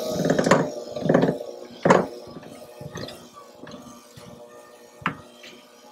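Electric hand mixer running at low speed in loose chocolate cake batter, its beaters knocking against the glass bowl a few times in the first two seconds. After that only the mixer's faint steady hum continues.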